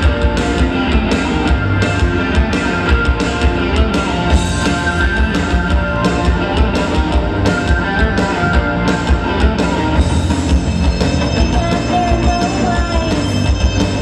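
Live rock band playing an instrumental passage without vocals: electric guitar and bass guitar over a steady beat.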